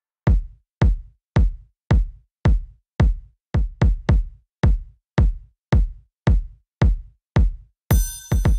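Background music: a drum-machine kick drum hitting alone on every beat, just under two hits a second, each hit dropping in pitch, with an extra quick hit about three and a half seconds in. Hi-hats and other instruments join near the end.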